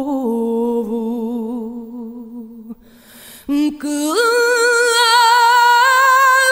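A woman singing a fado, holding a long note with wide vibrato that fades away, then after a brief breath swooping up to a higher note, also held with vibrato.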